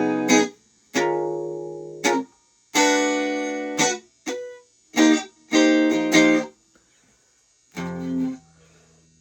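Fender Stratocaster electric guitar played clean through an amp: about six strummed chords separated by pauses, some left to ring for about a second and others cut off short.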